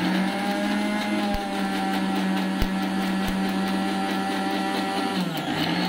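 Electric mixer grinder (mixie) running with a steel jar, whizzing raw eggs for egg mayonnaise. Its motor runs at a steady pitch, then slows briefly near the end and picks up again.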